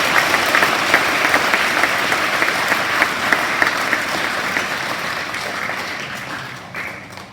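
An audience applauding, a dense clatter of many hands clapping that tails off over the last couple of seconds.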